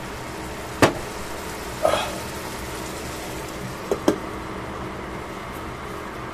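Beef frying with a steady sizzle in a stainless steel pan, broken by sharp knocks and clinks of metal and glass as a glass lid is handled and set on the pan: a loud knock about a second in, a short rattle near two seconds, and a quick double clink about four seconds in as the lid seats.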